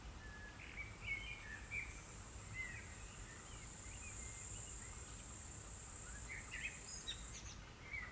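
Small birds chirping in short, scattered calls over a steady high-pitched insect trill; the trill stops suddenly near the end.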